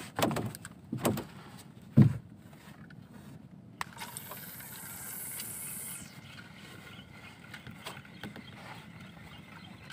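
Spinning reel and rod being worked while jigging from a small boat: light mechanical clicks and handling noise, with one sharp knock about two seconds in and a brief hiss in the middle.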